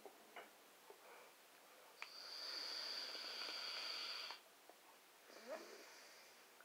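A draw on a vape mod: air hissing steadily through the atomizer for about two seconds, starting with a click, followed by a softer breath out as the vapor is exhaled.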